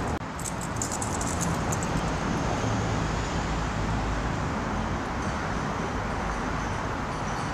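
Steady hum of city road traffic, an even wash of noise with no single vehicle standing out.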